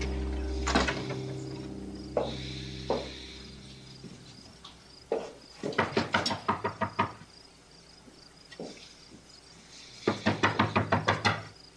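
Wooden door and its latch handled: a few single knocks, then two quick runs of clicking rattles about a second and a half long each, about eight a second. Background music fades out in the first second.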